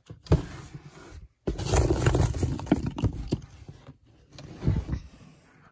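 Hands rummaging through a bin of loose foam Nerf darts: a dense rustling and scraping with scattered clicks, loudest in the middle, after a sharp knock near the start.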